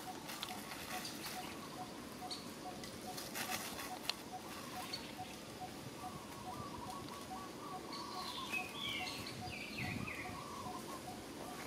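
Forest ambience with birds calling: one repeats a low note evenly about three times a second, and other birds chirp higher near the end. Short rustles and crackles of dry leaf litter come from macaques moving on the ground.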